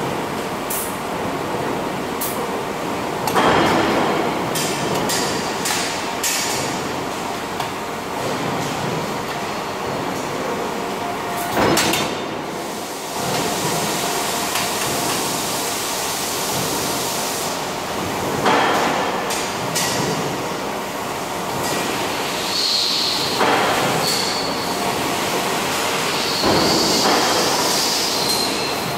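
Factory noise around a robotic welding cell: a steady machine drone broken by several louder clanks from the jig and fixture. Near the end comes the crackling hiss of the robot's arc-welding torch at work.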